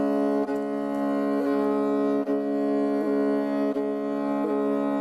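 Instrumental music: one low, steady droning note with many overtones, held unchanged in pitch and broken by a short dip about every three-quarters of a second.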